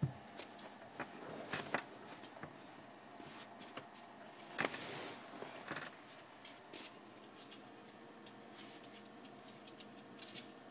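Faint handling sounds of hands moving a plastic bottle cap and the phone on a wooden floor: scattered light clicks and rustles, with a short rubbing noise about five seconds in.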